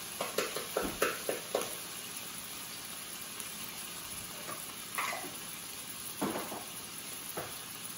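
Cubed deer meat sizzling steadily as it browns in olive oil in a skillet. A quick run of light clicks and knocks comes in the first two seconds, and two single knocks come later.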